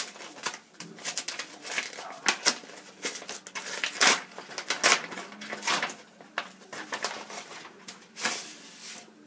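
A parcel being torn open and its packaging handled: irregular rustling, ripping and tapping strokes.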